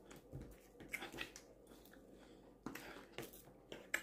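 Faint chewing: a few soft, irregular mouth sounds while eating.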